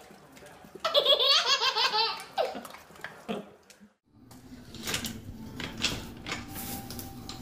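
A baby laughing in loud bursts for about a second and a half. After a brief pause come a steady low hum and a few light knocks and rattles.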